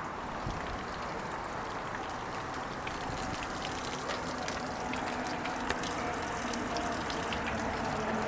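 Water gushing and churning around a running Mercury 115 outboard, with a faint engine hum coming in about three seconds in and slowly getting louder.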